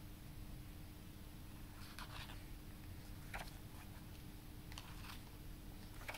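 Pages of a softcover booklet being turned by hand: several short paper rustles over a faint steady hum.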